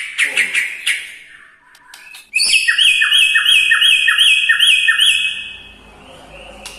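White-rumped shama (murai batu) singing: a quick run of chirps that stops about a second in, then after a short pause a loud phrase of about eight repeated notes, about three a second, that ends near the five-second mark.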